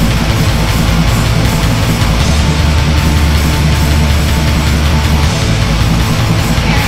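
Black metal song: a dense, loud wall of heavily distorted electric guitars over shifting low bass notes, held at a constant level.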